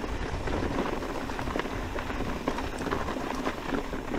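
Orbea Wild FS e-mountain bike rolling over a loose rocky trail: tyres crunching on gravel and stones, with a steady run of small clicks and rattles and a low rumble underneath.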